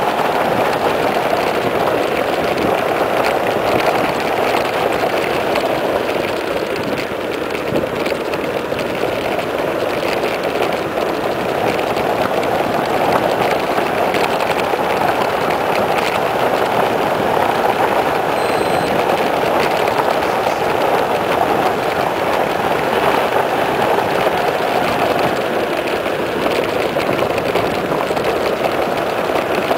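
Wind rushing over the microphone, with tyre noise on asphalt, as a mountain bike runs fast downhill. It is a loud, steady rushing that eases a little now and then.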